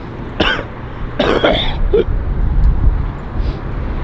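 A person clearing their throat twice, two short harsh bursts about a second apart, over wind rumbling on the microphone.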